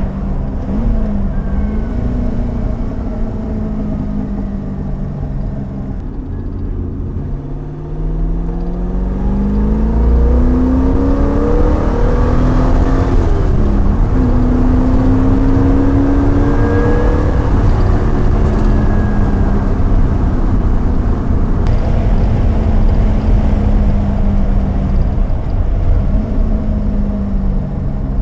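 A 1966 TVR Grantura's 3.9-litre V8 engine, with a manual gearbox, driving along. It runs steadily at first, then pulls with a rising pitch from about eight seconds in, getting louder. The pitch dips briefly midway and climbs again before settling to a steady cruise, with another brief dip near the end.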